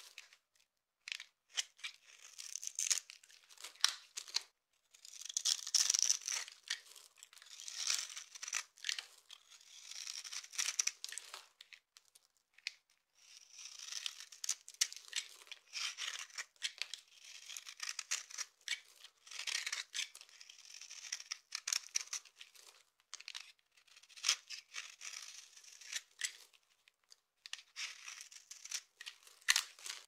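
Knife blade scraping across bars of dry soap, shaving off flakes and powder: a series of crisp scraping strokes with short pauses between, and small crackles as bits of soap break away.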